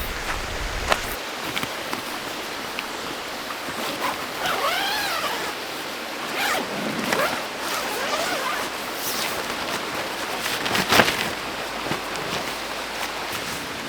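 A zipper drawn in a few pulls around the middle, with a sharp knock a few seconds later, over steady water noise.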